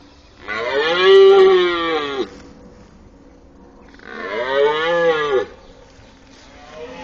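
Red deer stag roaring in the rut: two long roars a couple of seconds apart, each rising and then falling in pitch.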